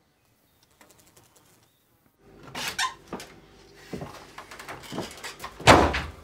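Near silence for about two seconds, then an old wooden door worked indoors: creaks and knocks, ending in a heavy thud as it shuts, the loudest sound, shortly before the end.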